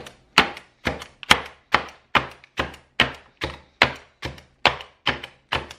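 Vintage spring-loaded stainless steel hand chopper chopping lettuce leaves on a wooden cutting board. Its blades strike down in a steady rhythm of about two chops a second.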